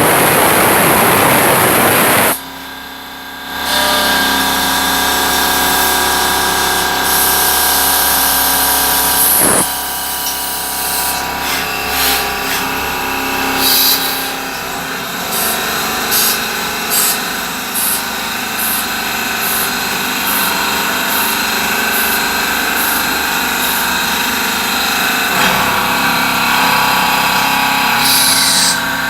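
CNC machine working a brass part: a steady hum of motors with many whining tones. It opens with a loud hissing rush for about two seconds. From about eleven seconds in comes a run of short, high-pitched whines roughly half a second to a second apart, and a falling whine near the end.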